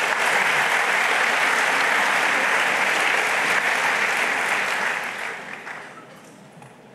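Audience applauding, steady, then dying away after about five seconds.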